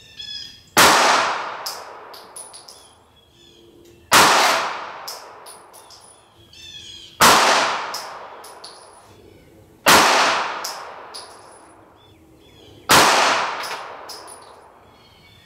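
Five 9mm pistol shots from a Glock 19 firing 135-grain Federal Hydra-Shok Deep rounds, about three seconds apart. Each shot is a sharp crack with a long echoing tail and a few small clinks after it.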